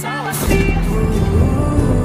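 Background music: a song with a heavy bass line that comes in about half a second in.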